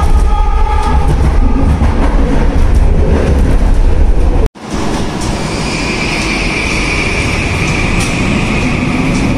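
Vancouver SkyTrain running on its elevated guideway, heard from inside the front car as a loud, steady rumble. After a sudden cut about halfway, a SkyTrain moves along a station platform with a steady high whine and a lower tone that rises slowly near the end.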